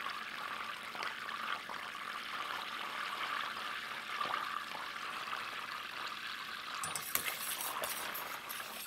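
Butter melting in a stainless steel pan, spitting and sputtering steadily as its water is driven off: the stage before it goes quiet and starts to brown. A few sharper clicks near the end.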